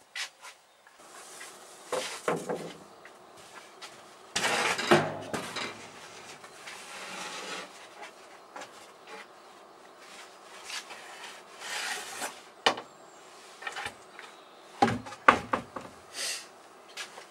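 Foam board being cut and handled on a workbench: irregular scraping, rasping strokes with sharp knocks and clatter between them. The longest, loudest strokes come about four to six seconds in, with more around twelve and fifteen seconds in.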